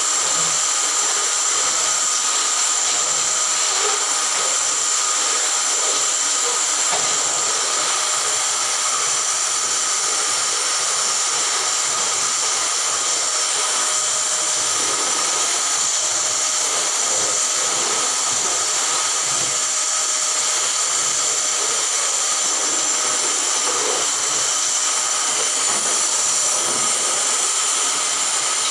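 Canister vacuum cleaner running continuously while its floor head is pushed over a hard wooden floor: a constant hiss with a steady whine in it.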